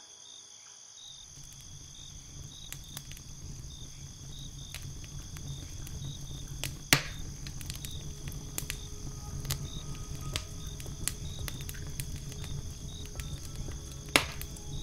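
Wood fire crackling, with two sharp loud pops, one about halfway and one near the end, over a low rumble that comes in about a second in and slowly grows. Crickets chirp steadily in the background.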